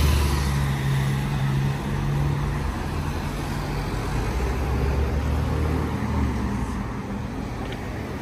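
Road traffic with a motor vehicle's engine running close by, a steady low hum that fades after about six seconds.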